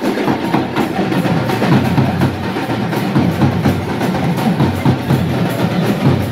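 Drums played in a fast, steady rhythm with sharp, loud strikes.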